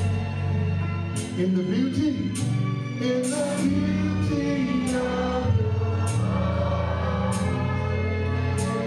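Gospel choir singing with a live band: sustained low bass notes under the voices and a sharp drum or cymbal hit on the beat about once a second.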